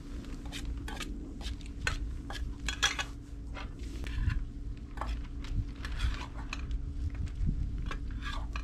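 Utensils clinking and scraping against a cast-iron cauldron and a metal bowl as noodles are dished out: a run of irregular sharp clinks over a low steady rumble.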